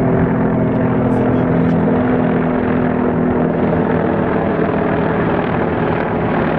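A formation of Mi-24 military helicopters flying over, a steady rotor and engine drone; its low hum weakens about halfway through as the group moves off.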